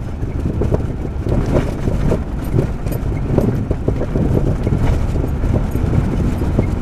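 Inside the cabin of a 1998 Jeep Grand Cherokee ZJ driving over a rough gravel desert track. A steady low rumble of engine and tyres runs under frequent irregular knocks and rattles from the suspension and body as it goes over the bumps.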